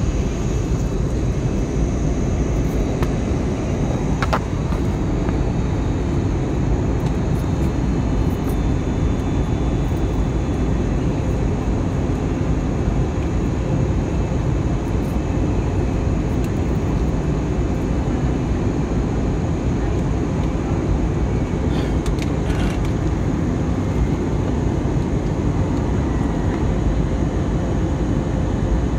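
Jet airliner cabin noise on approach to landing: the steady, dense rumble of the jet engines and rushing air, with a faint steady hum running through it. A couple of faint clicks stand out, about four seconds in and near the two-thirds mark.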